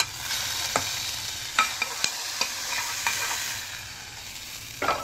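Hot sesame-oil tempering of mustard seeds, red chillies, onion and curry leaves sizzling where it has just been poured onto cooked millet and spinach rice in an aluminium pressure cooker. It opens with a sharp click, and the hiss fades over about four seconds, with a few sharp clicks in the first half.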